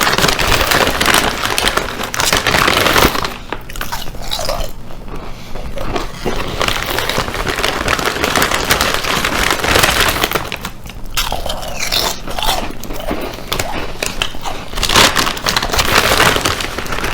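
Chips being bitten and chewed, a loud, crackly crunching close to the microphone.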